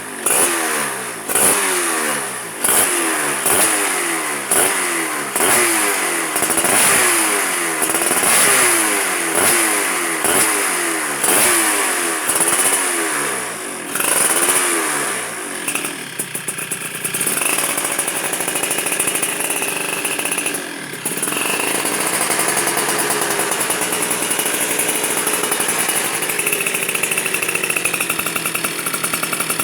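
Honda C70 motorcycle fitted with a Yamaha Force 1 two-stroke engine and an MK Racing exhaust, revved over and over, about once a second, for some fifteen seconds. It then settles to a steady idle with a couple of light blips of the throttle.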